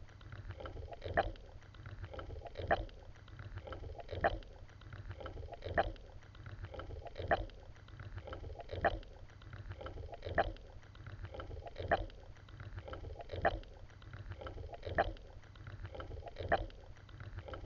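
Swimming strokes in water, one every second and a half or so in an even rhythm, over a steady low rumble.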